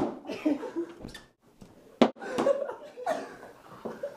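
People chuckling and muttering, with two sharp knocks, one at the start and one about two seconds in.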